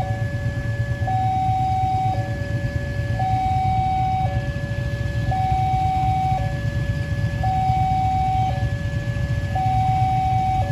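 Automatic railway level-crossing warning signal sounding its two-tone alarm: a lower and a higher tone alternating, each held about a second, repeating evenly. It warns that a train is approaching and the barrier is down. Under it runs a low steady rumble.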